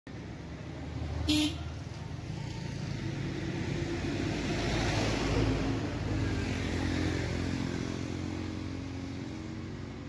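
A motor vehicle passes on the road, its engine and tyre noise building to a peak around the middle and then fading away. A short sharp sound stands out about a second in.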